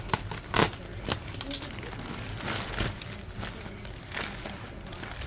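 Irregular rustling and crinkling with sharp clicks, as of things being handled.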